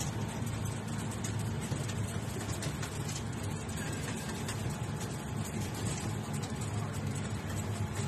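Steady low engine and road rumble of a vehicle, heard from inside its cabin while it drives.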